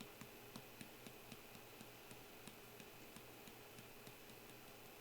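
Faint, quick ticking over near silence: small clicks about three or four times a second, growing weaker.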